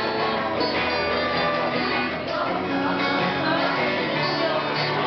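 Acoustic guitar strummed live, chords ringing on steadily.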